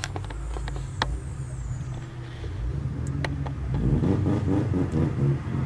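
Car engine running, heard from inside the cabin as a steady low drone while the car rolls slowly, with a few light clicks.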